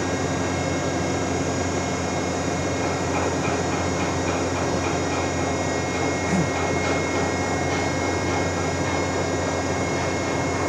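Steady running drone of a ship's hydraulic deck crane and its power unit, a constant hum with a steady high whine over it. A brief low sound stands out about six seconds in.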